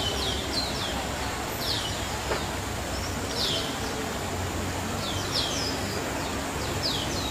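Small birds chirping: short, high, downward-sliding calls at irregular intervals over a steady outdoor background noise.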